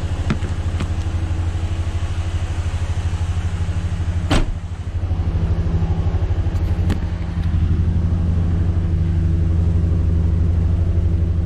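Chevy 2500HD's 6.0-litre V8 running steadily, smoother but still with a huff and a puff and a little bit of knocking, which the owner suspects is a semi-stuck valve inside the block. A single sharp click about four seconds in.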